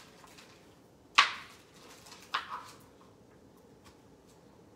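Kitchen knife chopping squash on a plastic cutting board: two sharp knocks a little over a second apart, the first the louder, then a few faint taps.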